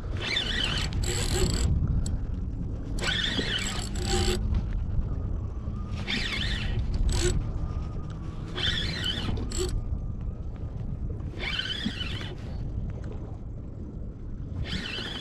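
Spinning reel giving short zipping bursts every one to three seconds while a hooked salmon is fought on the line, over a steady low rumble.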